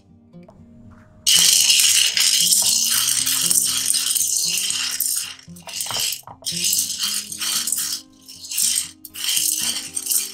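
Popcorn kernels rattling and scraping against a nonstick frying pan as a wooden spatula stirs them. The rattle starts suddenly about a second in, runs continuously for a few seconds, then comes in separate sweeps of the spatula. Background music plays underneath.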